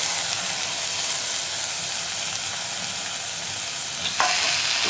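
Freshly added chopped tomatoes sizzling in hot oil and fried spices in a cast-iron kadai, a steady hiss. About four seconds in, a spatula starts stirring them, with a light scrape, and the sizzle grows brighter and more uneven.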